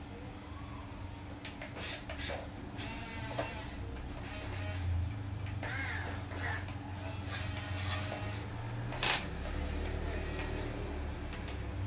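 Small battery-powered electric gear motors of a Huina RC excavator whining and grinding in short bursts as the boom and arm lift and the upper body swings, over a steady low hum. One sharp click comes about nine seconds in.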